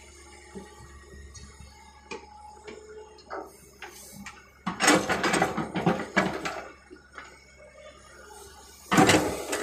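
Hydraulic excavator's diesel engine running steadily while a bucketload of soil is dumped into a tipper truck's body: a loud rush and clatter of falling earth begins about five seconds in and lasts over a second, with another sudden burst near the end.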